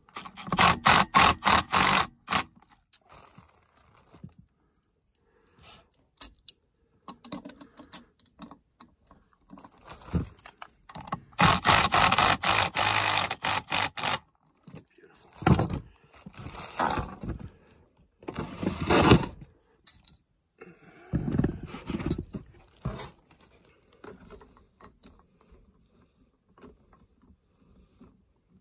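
Milwaukee cordless impact driver hammering on the bolts of an HVAC blower motor's mounting bracket, in two bursts of about two seconds each: one near the start and one about halfway through. Metal clanks and scrapes follow as the bracket is handled.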